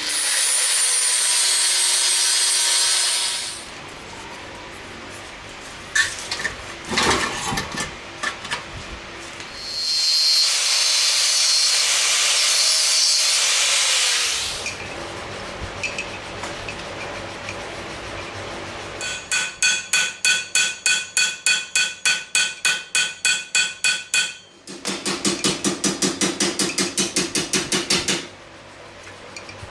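Angle grinder cutting or grinding thin steel plate in two steady bursts of a few seconds each, with scattered knocks between them. Then steel plate is hammered: a run of ringing blows at about four a second, followed by a quicker run of blows.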